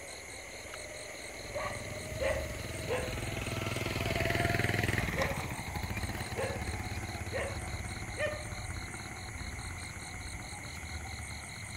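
Night-time outdoor ambience: a steady pulsing of insects, half a dozen short faint barks like distant dogs, and a low rumble that swells and fades about four to five seconds in.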